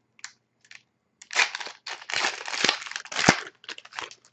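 Hockey card pack wrapper being torn open and crinkled by hand: a few short crackles, then a stretch of dense crinkling and tearing with a sharp thump near the end.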